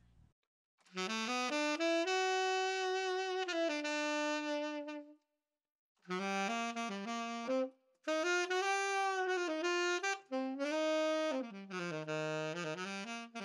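Roy Benson TS-101 student tenor saxophone played solo in three melodic phrases, with a pause of about a second between the first and second and a brief break about eight seconds in.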